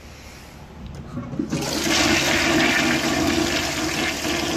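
Toilet flushing: water starts to rush into the bowl about a second and a half in and keeps rushing loudly.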